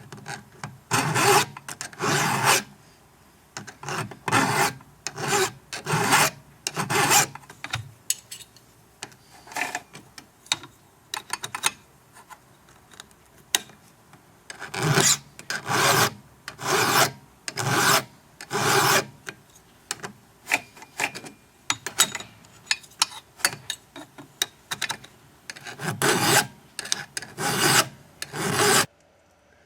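Hand file scraping across the steel depth gauges of a chainsaw chain in short strokes, rounding off (ramping) their front edges. The strokes come in runs with short pauses between them, and stop abruptly just before the end.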